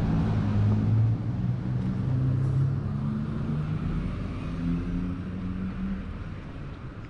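A small car driving along the street and away, its engine note rising a little and then fading out over the last few seconds.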